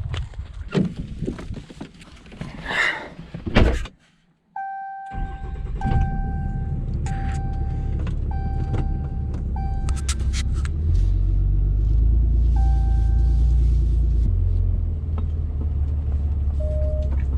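Walking and handling knocks, then a vehicle engine running with a low steady rumble that grows louder about halfway through. Over it, a series of short electronic warning beeps at one steady pitch sound roughly once a second.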